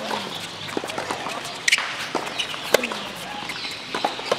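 Tennis rally on a hard court: sharp pops of racket strings hitting the ball, about one every second and a half, with lighter ball bounces between. The loudest hit comes right at the start.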